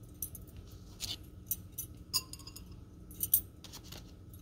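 Spoons clinking and tapping against the rim and side of a glass beaker as a plastic spoon and a wooden stick are set into it beside a metal spoon: a scatter of light, irregular clicks, the loudest a pair about three seconds in.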